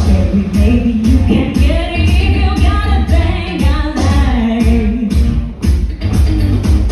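Pop music with a steady beat and a woman singing.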